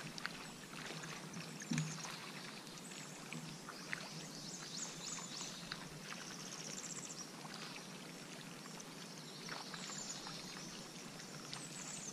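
Quiet open-air ambience on a boat on the water: a faint steady hiss with many short high chirps and trills over it, and a couple of soft thumps.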